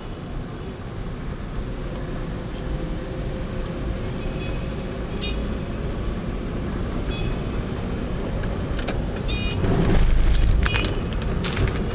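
Steady low road and engine rumble of a car driving in city traffic, heard from inside the cabin. A few short high-pitched chirps come through midway, and the noise swells to a louder rush about ten seconds in.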